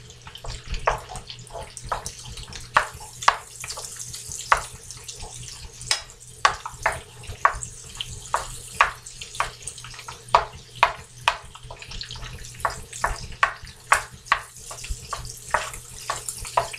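Wooden spoon stirring and breaking up crumbled tofu in a buttered skillet: irregular clacks and scrapes of the spoon against the pan, about two a second, over a faint sizzle.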